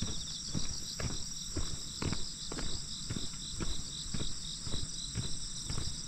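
Footsteps on a wet asphalt road, about two steps a second, with a steady high chorus of insects singing from the roadside vegetation.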